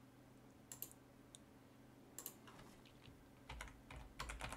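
Faint computer keyboard and mouse clicks: a few separate clicks, then a quick run of keystrokes in the last second or so as a word is typed.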